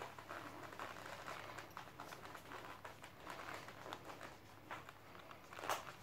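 Faint rustling of fabric and leather as snap belt keepers are fastened around a leather duty belt at the back, with scattered small clicks, the sharpest near the end.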